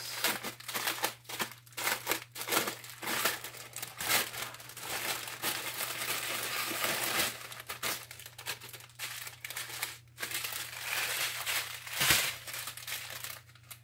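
Plastic packaging crinkling and rustling as it is handled, in irregular crackles, with a sharper knock about twelve seconds in.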